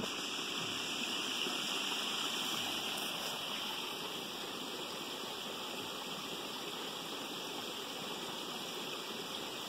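Waterfall with water rushing steadily, an even, unbroken wash of noise.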